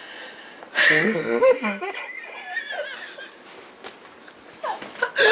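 Wheezing laughter: a loud, breathy burst of laughing with a wavering squeaky pitch about a second in, tailing off over the next two seconds, then a few short laughs near the end.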